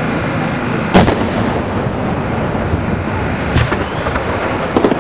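Aerial fireworks bursting: one loud bang about a second in and smaller bangs in the middle and near the end, over a steady crackling rumble of the display.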